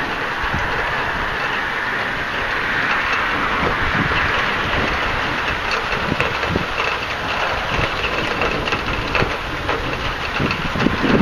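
Steady noise of rain and wind in a thunderstorm, with gusts buffeting the microphone in low rumbling thumps that grow stronger near the end.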